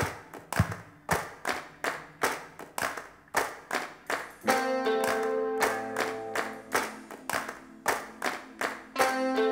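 Hands clapping along in a steady rhythm, about three claps a second. About halfway through, an instrument comes in with long held chords under the clapping.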